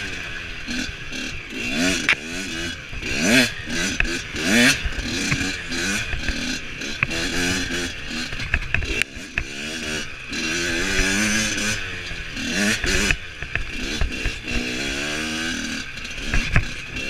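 Dirt bike engine revving up and falling back over and over as the throttle is opened and rolled off while riding, with scattered knocks and rattles.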